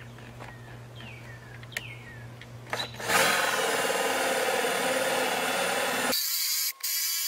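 Cordless drill with a Forstner bit boring into a wooden board, starting about three seconds in and running steadily under load. About six seconds in, the lower part of the sound cuts out abruptly.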